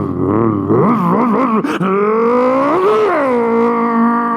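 A man's voice imitating small street motorcycles: a buzzing engine note that wavers up and down like revving. It then climbs in pitch and holds a steady high drone.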